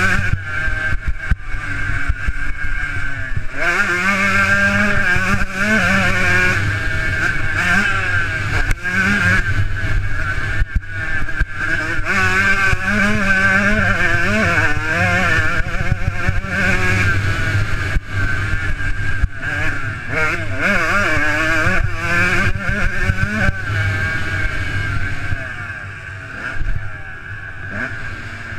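Motocross dirt bike engine revving hard, its pitch climbing and dropping again and again as the rider shifts through the gears. It is heard from a helmet-mounted camera. Near the end the engine eases off to a quieter, lower note as the rider backs off the throttle.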